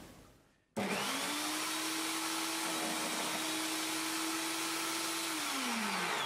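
Hobby mini table saw's motor starts about a second in, runs at a steady pitch while the end of a small wooden dowel is trimmed off at an angle, and winds down in pitch near the end as it is switched off.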